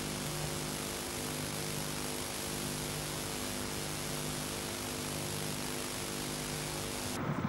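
Steady hiss and electrical hum, with a low buzz that pulses on and off about once a second; the hiss cuts off abruptly near the end.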